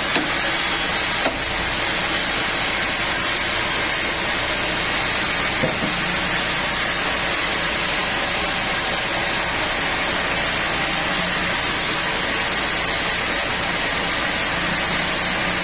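Sawmill machinery running, a steady noisy din with a couple of brief knocks.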